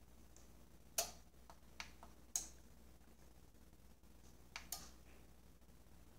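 Several sharp clicks from a Yamaha RX-V477 AV receiver being powered up and shutting itself off again a moment later: two loud clicks about a second and a half apart with fainter ones between, then a quick pair near the end. Clicks like these fit the power relay pulling in and dropping out, the sign of a receiver going into protection and switching off.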